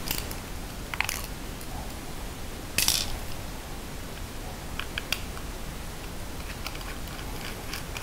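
Scattered small clicks and taps of a precision Torx T6 screwdriver backing the mounting pins out of a 2.5-inch laptop hard drive, with the drive's metal case handled and knocked now and then. The loudest knock comes about three seconds in.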